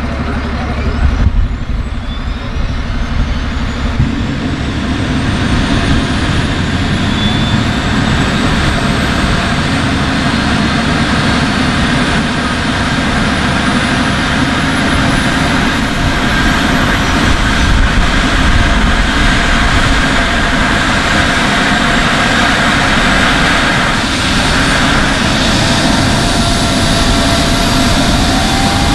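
Eurocopter EC135 rescue helicopter starting up: a turbine whine that climbs slowly and steadily in pitch as the main rotor begins to turn, over a low rumble that grows stronger a few seconds in.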